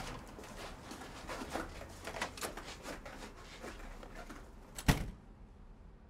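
Faint room sounds with scattered small clicks and rustles, then one sharp click or knock about five seconds in, after which it goes much quieter.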